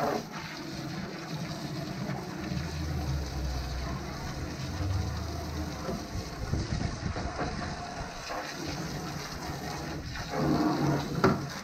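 Garden hose spray hitting the painted steel shell of a tool chest and splashing off it: a steady rush of water as the cleaner is rinsed away.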